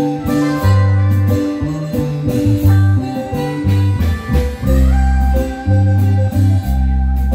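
A marimba band playing dance music, with a strong bass line in held notes under a melody.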